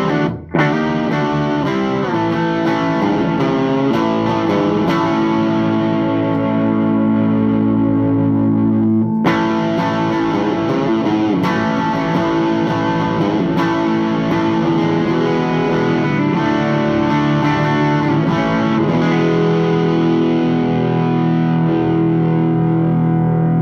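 Electric guitar played through a Thick Electronics Thickener two-knob overdrive pedal: distorted riffs and chords, with a brief stop about half a second in. In the last few seconds, chords are held and left to ring.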